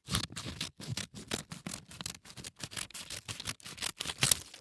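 Scissors cutting through paper: a quick run of snips, several a second, with the loudest snip near the end.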